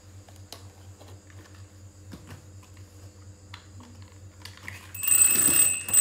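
Light scattered clicks and taps of a plastic crocodile toy being handled by a baby macaque. About five seconds in, a louder rustling scuffle lasts about a second and ends in a sharp click.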